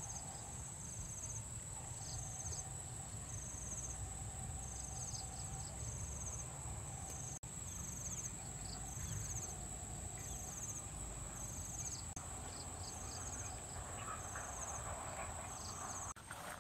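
Insects chirping: a steady high shrill with short pulsed chirps repeating about once a second, over a low rumble.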